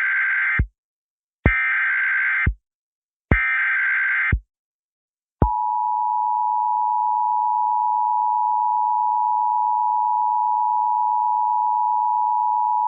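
Emergency Alert System broadcast: three roughly one-second bursts of SAME digital header data tones, then about five seconds in the steady two-tone EAS attention signal starts and holds. This is the alert lead-in for a National Weather Service severe thunderstorm warning.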